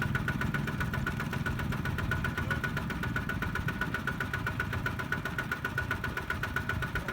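Small single-cylinder diesel engine of a two-wheel walking tractor running at a steady, rapid chug without revving up or down.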